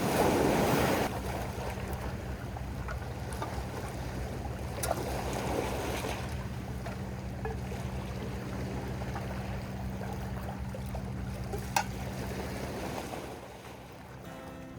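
Waves washing on the shore and wind buffeting the microphone, loudest in a gust at the start. Under it runs a steady low hum, with a couple of sharp clicks.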